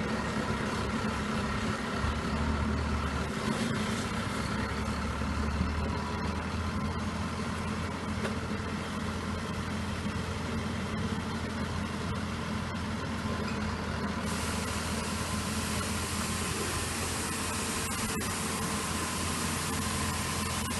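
John Deere T670i combine harvester running, a steady engine drone with machinery hum. About 14 s in, a brighter hiss comes up over it.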